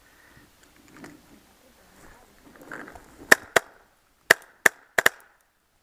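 Tippmann paintball marker firing six shots in quick succession, sharp pops starting about halfway through, the last two almost together. Soft rustling of dry brush comes before the shots.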